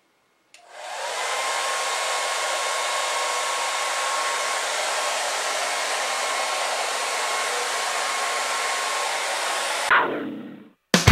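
Hand-held hair dryer running, a steady rushing blow with a faint whine, switched on just after the start and switched off near the end, winding down over about half a second. Loud rock music cuts in at the very end.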